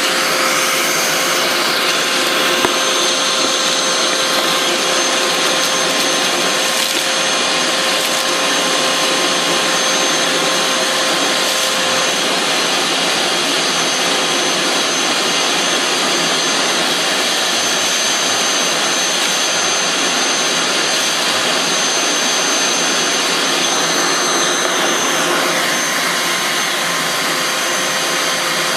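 Vacuum cleaner running steadily through a cyclone dust separator: a continuous rushing airflow noise with a thin, steady high whine over it.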